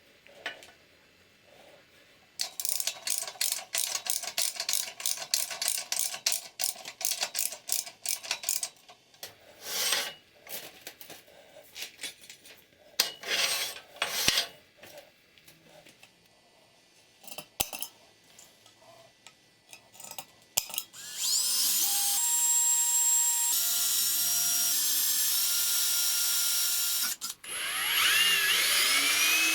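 Hand-tool work in a metal shop: a run of quick, even strokes, then scattered knocks and scrapes. After that an electric power-tool motor spins up with a rising whine and runs steadily, its pitch stepping between speeds. It stops briefly near the end and spins up again.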